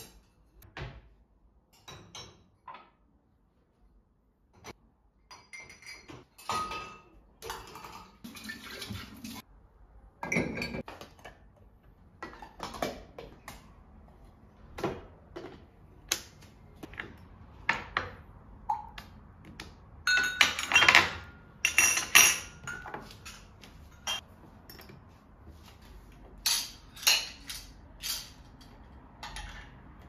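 Dishes and glassware clinking and clattering as they are handled: plates in dishwasher racks, then glass food containers and tulip-shaped tea glasses on saucers picked up and set down. The clinks are short and sharp and come irregularly, with busier clattering in a couple of stretches.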